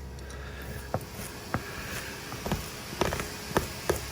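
Irregular clicks and scrapes of hand work pulling softened homemade slime out of carpet fibres, coming more often after about three seconds.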